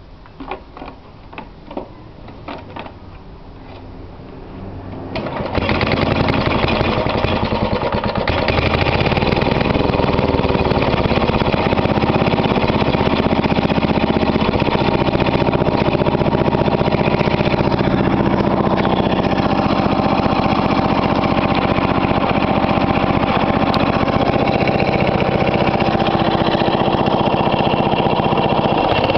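Cold start of a Hayterette rotary mower's 5 hp Briggs & Stratton engine. A few light clicks come first, then the engine fires about five seconds in and keeps running steadily.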